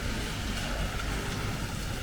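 Steady city street noise in the rain: a low rumble of road traffic with a continuous hiss of tyres and rain on wet pavement.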